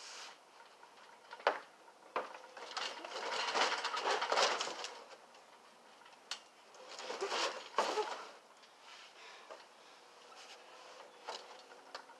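A sharp knock about a second and a half in, then two stretches of rustling and creaking, from a child jumping off a plastic toy picnic table and landing and moving about on a trampoline mat.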